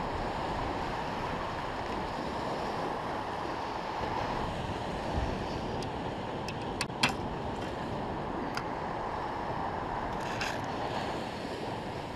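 Ocean surf breaking and washing up a sandy beach, a steady rushing wash, with wind buffeting the microphone. A few short, sharp clicks come in the middle.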